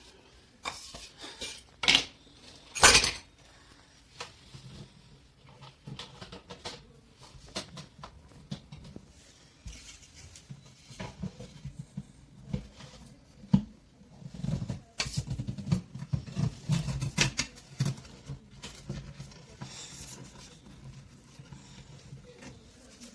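Irregular knocks, clicks and scraping of hand work with tools and materials, with two loud sharp knocks about two and three seconds in and a stretch of rougher scraping past the middle.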